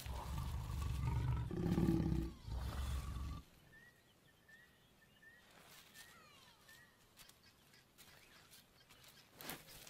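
Lions growling loudly at the close of a mating, a deep rough growl that stops short about three seconds in. Then a bird chirps faintly several times.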